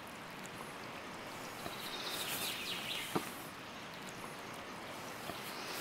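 Steady outdoor background noise, with a faint run of bird chirps about two seconds in and a single sharp click just after three seconds.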